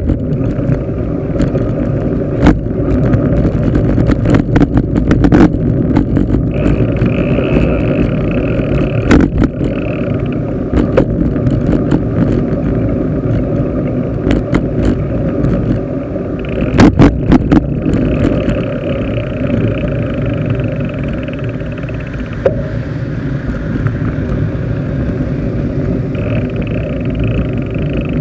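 Steady low wind and road rumble on a handlebar-mounted camera's microphone while a bicycle is ridden along a street, broken by sharp knocks and rattles from bumps, with a cluster of them a little past the middle.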